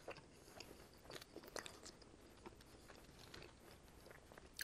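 Faint close-miked chewing of a mouthful of pizza, with scattered small wet mouth clicks and smacks.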